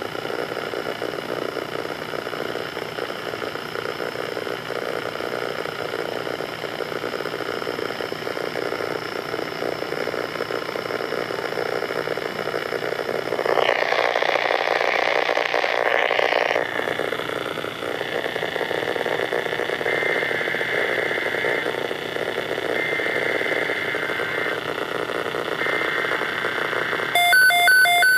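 Steady hiss with a faint hum through it, louder for about three seconds midway. Near the end a Midland WR-120 weather radio starts its pulsing alert beeps as it activates for a tornado watch.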